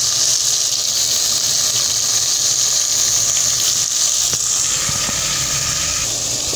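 Yam and bell pepper sauce sizzling in the pot, a steady high hiss.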